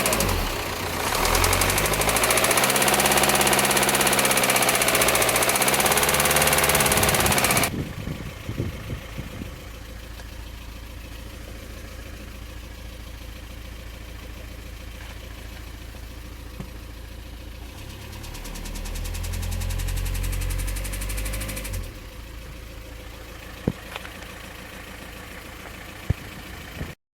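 VW Passat 1.9 TDI four-cylinder diesel engine revved hard with its pitch rising and falling, then dropping back to a steady idle about eight seconds in. It is revved up once more later, followed by a couple of sharp clicks near the end. The engine has a knocking noise that grows with revs, which the owner puts down to a damaged connecting-rod big-end bearing after an oil pump failure.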